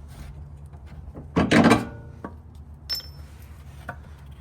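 Metal parts clunking and rattling as they are handled: one loud clatter with a short ring about one and a half seconds in, then a sharp metallic click near three seconds, over a steady low hum.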